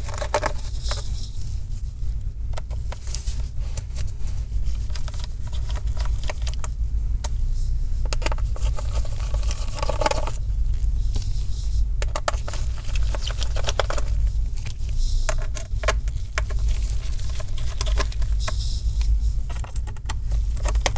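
Scattered small clicks and light metallic taps as tiny Torx screws and a driver are handled on an aluminium laptop back cover. A steady low hum runs underneath.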